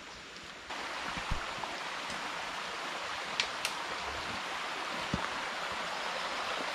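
A small stream running steadily, an even rushing that starts suddenly just under a second in, with a few faint clicks and knocks over it.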